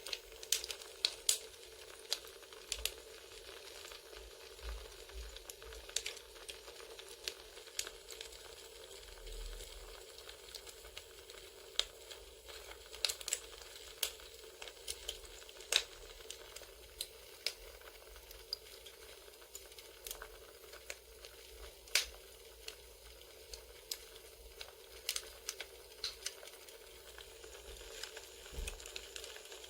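Crackling wood fire: irregular sharp snaps and pops over a steady soft hiss.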